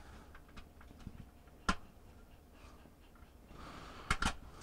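Plastic snap tabs on a Fisher & Paykel washer's machine control board housing being pried: a sharp click about two seconds in and two quick clicks near the end, with light handling rustle of the plastic case between, as the tabs release to open the housing.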